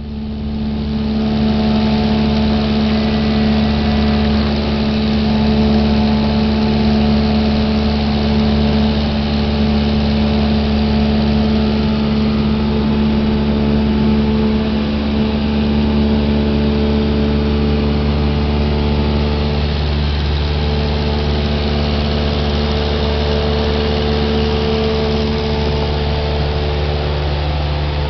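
Light high-wing airplane's engine and propeller droning steadily in cruise, heard from inside the cabin. The drone fades in over the first second or two, then holds an even pitch.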